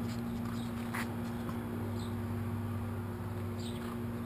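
2006 Yamaha R6's 600 cc inline-four engine idling steadily, with a few faint scattered ticks. The engine has a faulty cam chain tensioner whose spring was not seating and not giving proper tension, the cause of a clanking that the owner says is hard to hear at idle.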